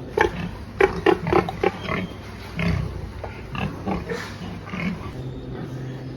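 Pigs grunting, with a quick run of short calls in the first two seconds and scattered ones after, over a steady low hum.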